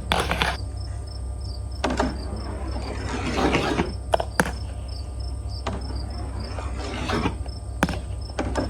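Glass marbles clicking and knocking along a plastic marble run track, about nine sharp clicks at uneven spacing with short stretches of rolling between them.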